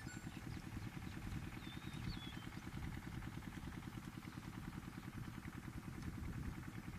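A vehicle engine idling steadily, with a low, even, rapid pulse. A bird's short whistled chirps come in about two seconds in.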